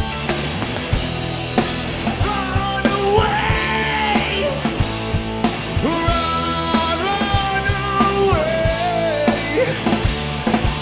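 Live rock band playing, with a steady drum beat under guitars and a long, bending lead melody.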